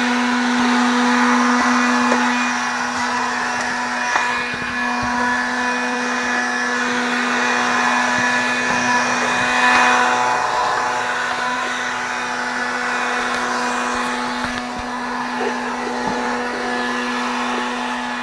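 Small rechargeable handheld vacuum cleaner running steadily as it picks up dog hairs: a steady motor hum over a rush of air.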